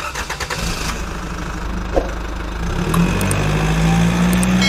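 A motor vehicle engine running, its note rising and getting a little louder from about three seconds in, with a sharp click about two seconds in.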